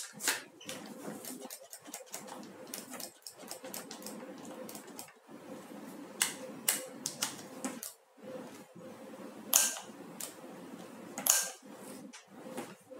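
Irregular clicks and knocks from a Hitachi D10VST electric drill being handled, with a few louder knocks among them.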